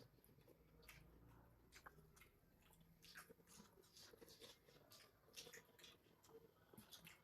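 Faint chewing and eating sounds: soft, irregular mouth clicks and squelches.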